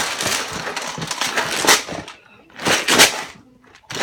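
Hard plastic Milwaukee Packout organizer being handled, with about two seconds of dense plastic rattling and clicking, then a single sharp plastic clack just before three seconds in.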